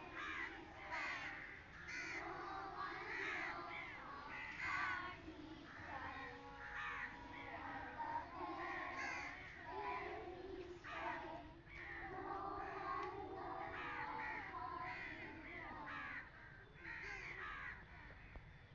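Many young children's voices chanting together in a run of short, repeated calls as they circle hand in hand.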